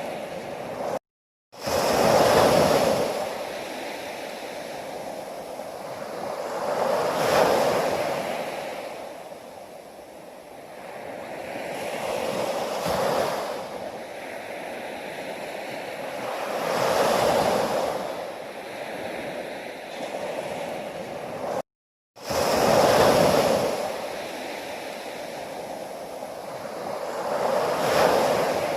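Ocean waves breaking and washing up the shore, each surge swelling and fading again about every five seconds. The sound cuts out completely twice, briefly, about a second in and near two-thirds of the way through.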